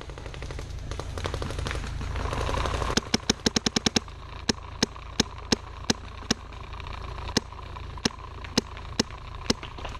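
About three seconds of rustling, rushing noise, then paintball markers firing: a fast string of about eight shots in a second, then single shots roughly every half second.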